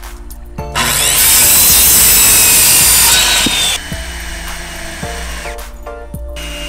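A corded circular saw cutting through a pressure-treated board, a loud burst lasting about three seconds, then a cordless drill driving into wood in two runs with a steady whine. Background music plays under it.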